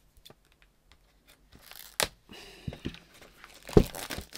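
Packaging being pulled off a boxed makeup palette: light rustling, tearing and crinkling, with a sharp snap about two seconds in and a louder knock near the end.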